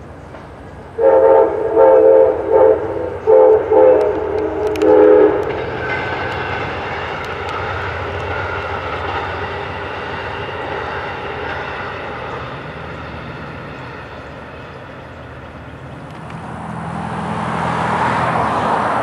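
Freight train's locomotive horn sounding a series of loud blasts, then the steady rumble of the train passing, the noise swelling again near the end.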